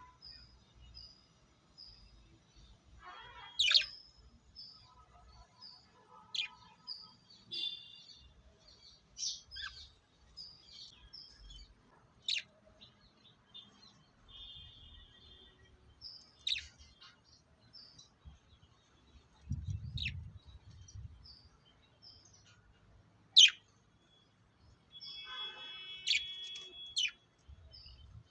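Lovebirds chirping: a run of short, high, repeated chirps broken every few seconds by sharp, piercing shrieks.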